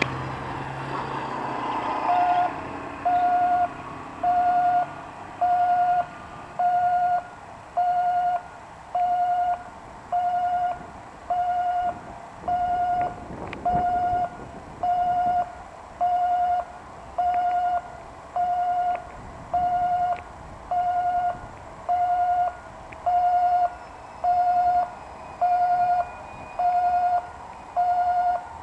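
Japanese railway level-crossing warning alarm with an unusual sound, a short beeping tone repeating about once a second, starting about two seconds in.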